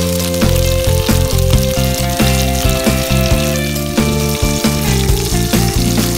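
Chicken pieces with onion and garlic sizzling and crackling in hot oil in a nonstick frying pan. A background music track with a steady bass line plays over the frying.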